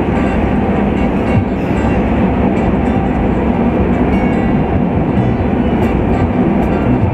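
Steady road and tyre rumble heard inside a car's cabin as it drives along a highway.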